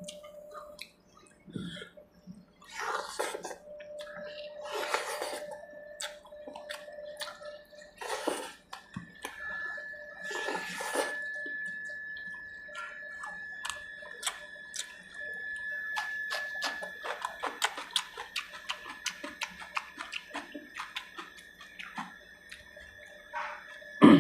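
Close-up wet eating sounds from a person eating fish curry by hand: several drawn-out slurps and sucks in the first half, then a quick run of lip smacks and wet mouth clicks while chewing.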